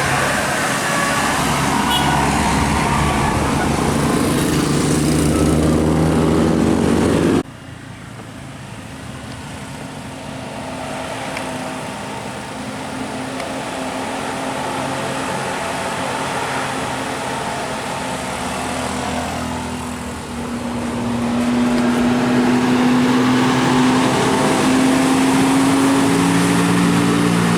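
Tour bus telolet (basuri) musical air horns sounding over traffic noise. The sound cuts off suddenly about seven seconds in, leaving quieter passing traffic. Near the end a tone slowly rises in pitch.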